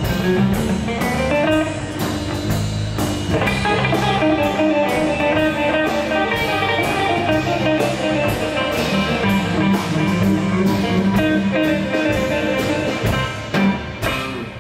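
Live blues band playing an instrumental break: guitar leading over electric bass and drum kit, with a steady beat and no vocals.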